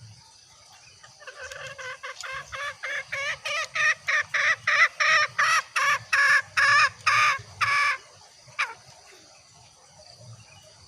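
Female green junglefowl calling: a long run of short clucking notes, about three a second, that grows steadily louder, then a single short note. This is the hen's call that draws in wild males.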